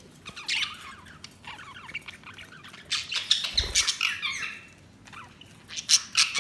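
Budgerigars chirping and warbling, with a busy run of short, fast chirps and a few louder sharp squawks about halfway through and near the end.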